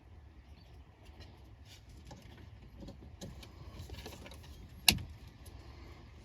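Faint clicks and light rattles of small parts and tools being handled, with one sharp click a little before five seconds in.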